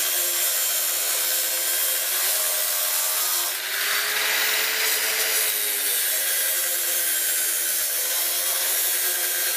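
Handheld angle grinder cutting metal diamond-pattern checker plate: a steady grinding hiss over the motor's hum. The pitch rises a little and brightens near the middle, then settles back.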